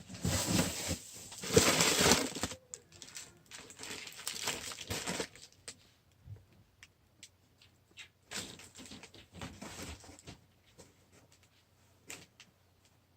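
Handling noise from an out-the-front knife being turned over in the hands: a rustle in the first two seconds or so, then scattered sharp clicks.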